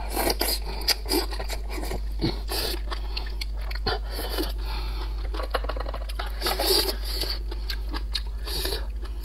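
Eating sounds from a person eating cooked oysters from the half shell: wet slurps, chewing and lip smacks, with many short clicks, louder in bursts near the start and again a little past the middle.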